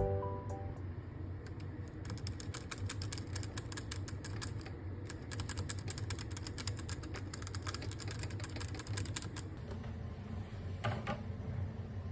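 Typing on a hot-swap mechanical keyboard: a fast, steady run of keystrokes that stops about three quarters of the way through, followed by a few louder key clacks near the end. The tail of a short falling chime jingle fades out in the first second.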